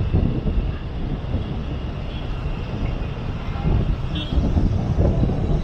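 Steady rumbling traffic noise from driving through city streets busy with small motorbikes, with a brief high tone about four seconds in.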